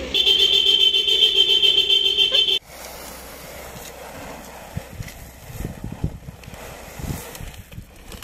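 Vehicle horns sounding in one loud, steady, pulsing blast from a convoy of pickup trucks setting off. The blast cuts off suddenly about two and a half seconds in. A quieter stretch follows with a few soft thumps.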